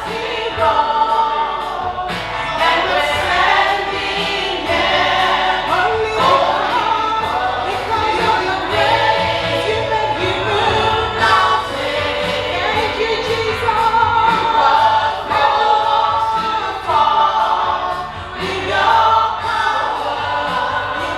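Choir singing a gospel worship song over continuous music, the voices held and gliding between notes.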